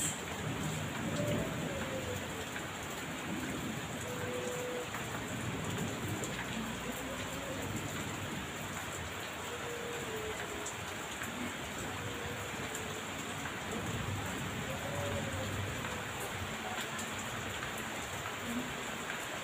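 Heavy rain pouring steadily, with low rumbles of thunder rising and falling underneath.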